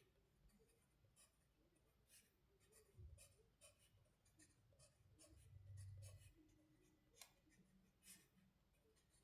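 Near silence: room tone with faint, scattered small clicks and a couple of soft low thuds, about three and six seconds in.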